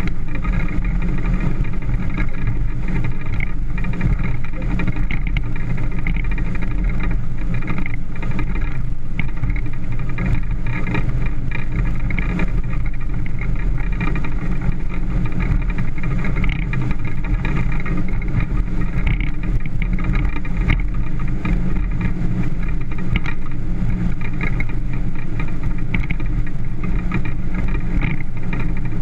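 Motorboat engine running steadily under way, its low hum unchanging throughout.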